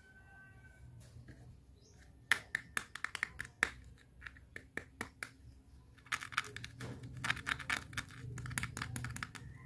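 Small hard-plastic toy accessories clicking and tapping as they are handled, with a toy handbag turned over in the fingers. It is quiet at first, then quick irregular runs of sharp clicks begin about two seconds in, pause briefly, and return more densely.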